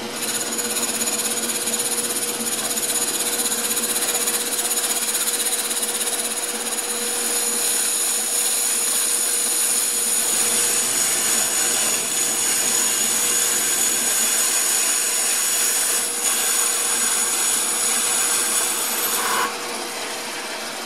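Metal lathe turning down a cast aluminium part: a steady motor whine with the hiss of the tool cutting, dropping in level near the end.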